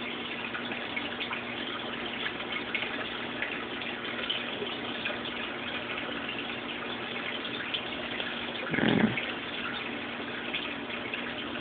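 Aquarium water circulating: a steady trickle and splash of moving water with a constant low electrical hum, as from the tank's filter or pump. A brief, louder muffled sound comes about nine seconds in.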